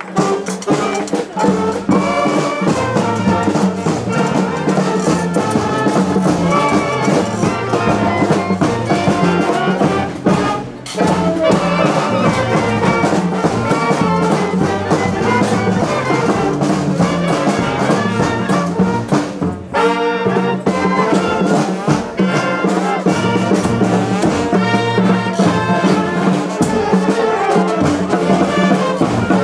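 Street brass band playing a tune, with trumpets and trombones over a steady bass line.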